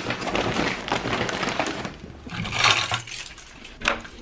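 Clattering and rustling from things being handled close to the microphone, with scattered sharp clinks and knocks.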